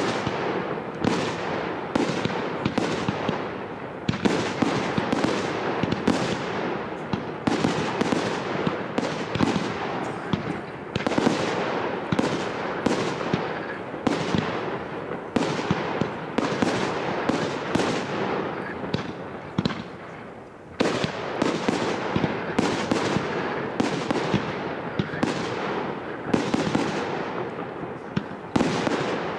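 Fireworks display: aerial shells bursting one after another, about one to two bangs a second, each trailing off in echo, with a short lull and a sudden loud bang about twenty seconds in.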